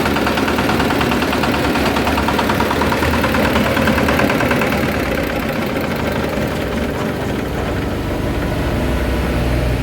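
Small single-cylinder hopper-cooled diesel engine running steadily at idle with an even knocking beat.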